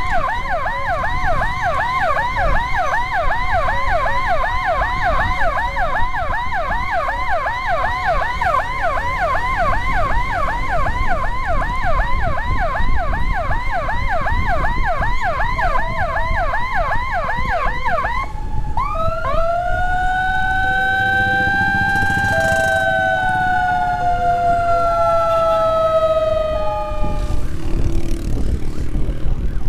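Electronic emergency siren on a fast yelp, sweeping up and down about two to three times a second. About two-thirds of the way through it switches to one long wail that rises, then slowly falls and dies away. A steady rumble of wind and motorcycle road noise runs underneath.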